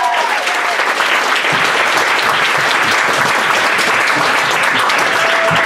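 Audience applauding steadily, the close of a stand-up set.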